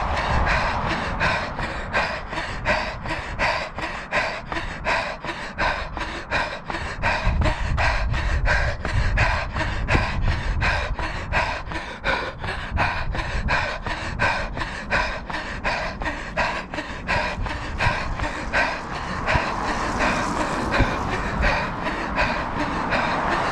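A runner breathing hard and rhythmically, with footfalls in step at about two to three a second, while running at fast tempo pace. Near the end the rhythm gives way to a steady rushing noise.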